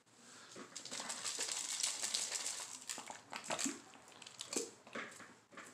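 Plastic snuffer bottle squeezed and sucking up water from a gold pan: a hissing, slurping draw for the first few seconds, then a few short sharp slurps and plastic crinkles.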